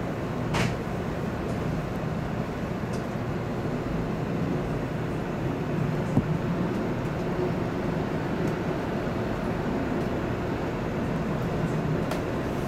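Running noise inside the driver's cab of a JR Central 313 series electric train pulling away from a station: a steady rumble of wheels on rail, with a few sharp clicks, the loudest about six seconds in.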